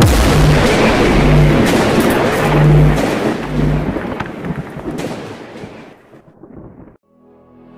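Cinematic logo-intro sound effect: a loud, dense thunder-like rumble and crackle with a low pulsing hum beneath it, dying away over the last few seconds to near silence.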